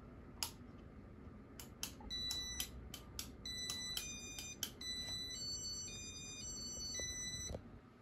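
Electronic beeps from a Casablanca Inteli-Touch ceiling fan's electronic control running its demo mode. A few clicks come first, then a quick run of short beeps, then a short tune of held tones that step up and down in pitch and stop abruptly about seven and a half seconds in.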